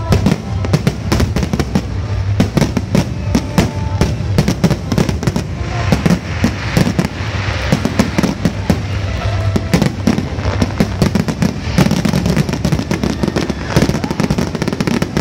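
Fireworks display barrage: aerial shells bursting in rapid succession, many bangs a second, with a thicker crackling stretch about six to eight seconds in.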